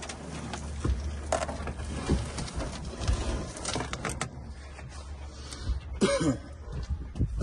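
Scattered knocks and bumps as a small dinghy is lifted and tilted on a boat deck, over a steady low rumble. A short grunt comes about six seconds in.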